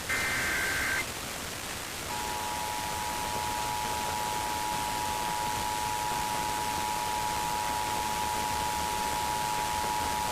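Emergency Alert System signal received over a hissing radio: the last burst of the SAME digital header, a warbling data tone near 1.6–2 kHz, for about a second, then from about two seconds in the steady two-tone EAS attention signal (853 and 960 Hz sounded together). Together they announce an EAS test broadcast.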